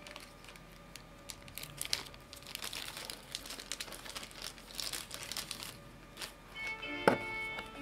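Clear plastic wrapping crinkling in irregular bursts as it is handled. Background music comes up louder near the end, with a sharp note about seven seconds in.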